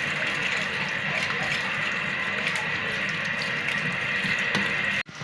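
Steady rush of running water, cut off abruptly near the end.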